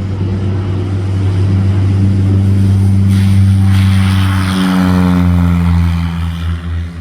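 Piston-engine propeller aircraft passing close by. Its engine tone swells to a peak about halfway through, then drops in pitch and fades as it goes past.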